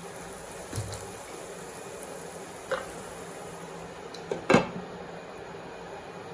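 Potato and onion filling sizzling steadily in a pan on medium flame, with a couple of light knocks and one louder clatter of cookware about four and a half seconds in, as the pan is being covered.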